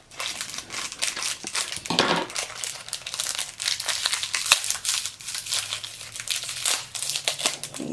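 Crinkly plastic toy packaging being torn open and crumpled by hand, a dense, irregular run of crackles and rustles.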